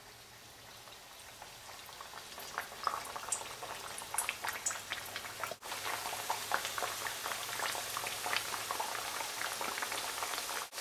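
Banana puris frying in hot oil: a dense crackling sizzle that builds up as more rounds of dough are slid into the oil one after another.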